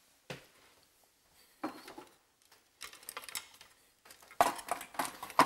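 Intermittent clicks and light clatter of a small plastic control panel and its wiring connectors being handled and fitted into a wall cabinet, getting busier about a second before the end.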